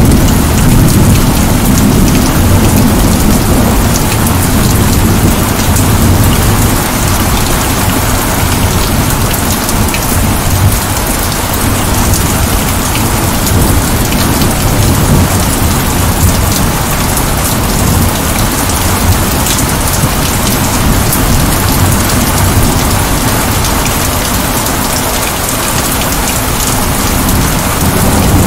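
Heavy rain falling steadily, a dense even hiss with a low rumble underneath that is strongest near the start and again at the end.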